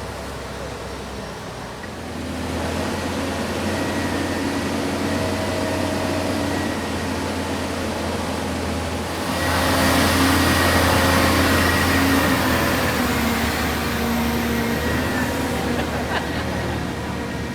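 Motor vehicle engine running, growing louder about two seconds in and loudest around the middle before easing off a little.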